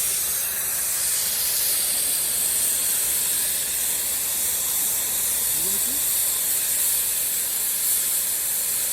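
Steady, loud hiss of cold compressed air blowing through a freshly cured pipe liner, the cool-down stage of relining the terracotta pipe.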